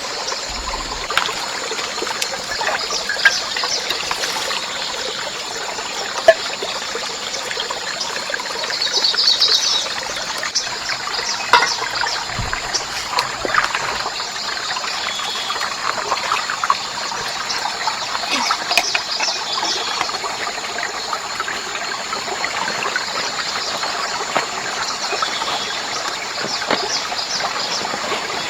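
Water trickling steadily, with many small crackles and splashes.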